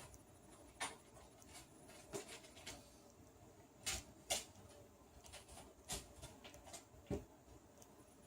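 Faint scattered clicks and light scraping from a 2 mm hex driver and the rack's plastic plates and aluminium tubes being handled while its screws are tightened; about six sharp clicks, two close together near the middle.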